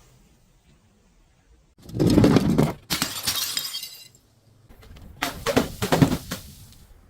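Glass breaking: a heavy crunch about two seconds in runs straight into a second of bright shattering glass, followed a little later by a quick run of sharper cracks and crunches.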